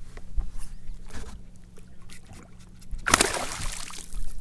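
Water sloshing and small knocks around a small fishing boat, with a brief louder splash about three seconds in, over a steady low hum.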